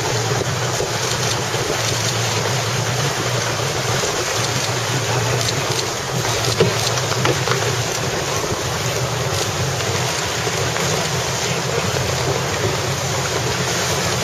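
Steady rush of wind and water aboard a Melges 32 racing sailboat under way, with wind buffeting the microphone. One brief thump a little past halfway.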